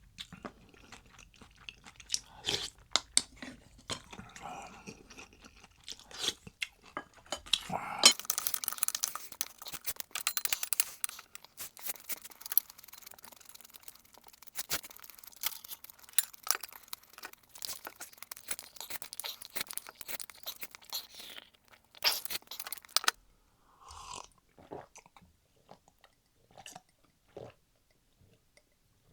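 Close-miked chewing and crunching of food in the mouth, with many small crisp clicks. The crunching gets dense and loud about eight seconds in, then drops to sparser, quieter chewing for the last several seconds.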